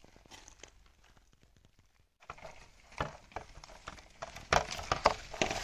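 A hand squishing and mixing wet tandoori masala paste (spices, yogurt, oil and lemon juice) against a steel tray: a quick, irregular run of wet squelches and smacks. It is faint at first, then louder and denser from about two seconds in.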